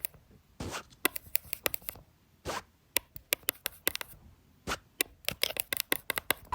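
Close-miked ASMR trigger sounds: irregular crisp clicks and scratches, in quick runs, with a few short soft swishes between them.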